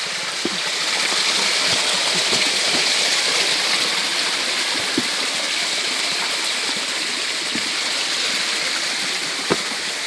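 A small forest creek cascading down layered rock in a little waterfall: a steady rushing and splashing of water close to the microphone, with a light knock near the end.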